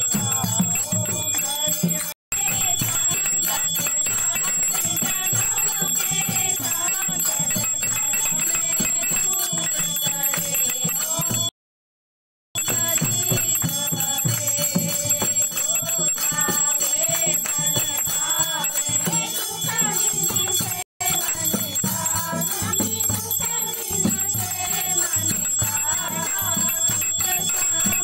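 A group of women singing a devotional hymn together during an aarti, with a bell ringing continuously. The audio drops out briefly three times.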